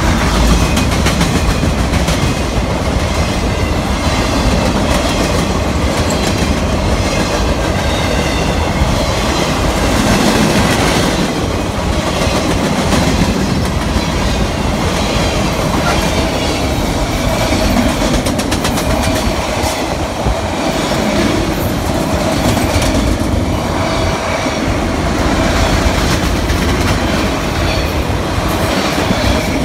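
Freight train of boxcars and autorack car carriers rolling past close by: steel wheels rumbling and clacking steadily over the rail joints.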